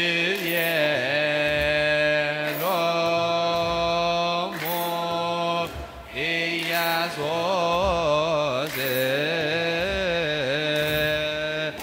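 A choir chanting a wereb, an Ethiopian Orthodox hymn, in unison: long held notes with wavering melismatic ornaments. The phrases are broken by a few short pauses for breath.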